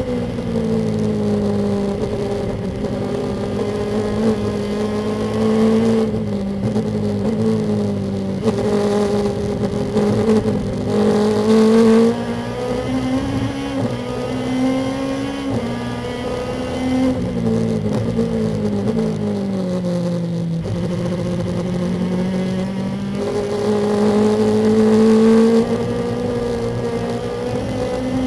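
Lexus IS-R race car's engine heard from inside the cockpit, running hard under load. Its pitch falls and rises several times as the car slows for corners and accelerates out of them.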